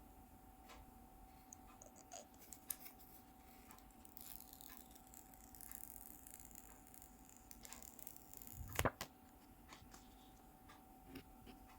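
Faint handling of a phone and its packaging: scattered small clicks and a soft rustle, with one sharper knock about nine seconds in, over a steady faint hum.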